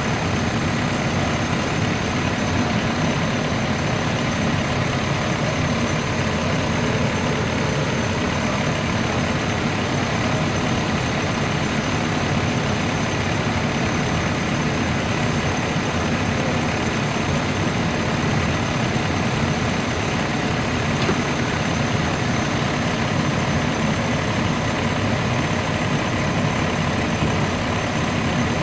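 Steady, unchanging drone of an idling vehicle engine.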